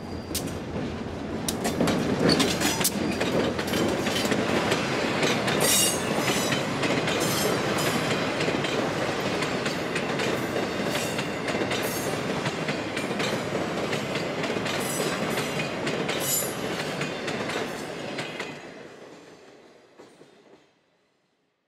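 Freight train passing close by: an EMD GP38-2 diesel locomotive goes by first, followed by a long string of open-top stone hopper cars. Their wheels rumble and clack steadily over the rail joints. The noise fades away over the last few seconds as the end of the train passes.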